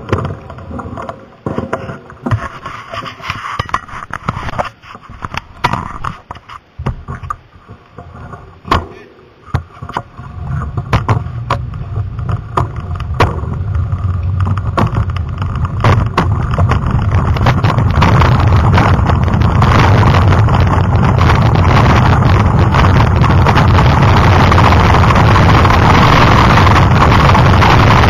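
Mountain bike running downhill on a gravel and dirt trail: the tyres crunch and the bike rattles, with scattered sharp knocks over bumps. From about eleven seconds in the sound rises into a steady, loud rush of wind on the microphone and tyre noise.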